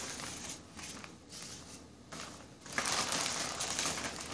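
Clear plastic packaging bag crinkling and rustling as foam model-plane parts are handled and slid out of it, louder and busier from about three seconds in.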